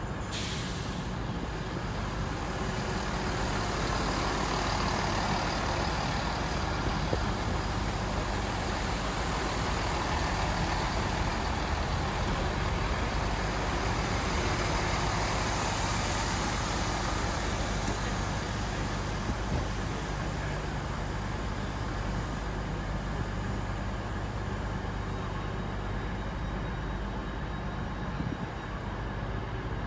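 GWR Class 166 Turbo diesel multiple unit running past on the platform line, its underfloor diesel engines humming steadily under wheel and rail noise that swells and then fades.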